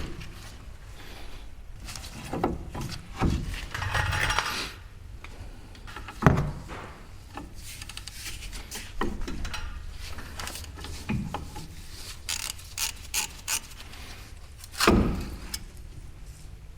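Irregular clinks, knocks and scraping of hand tools and brake parts being handled, with a sharp knock about six seconds in and another near the end.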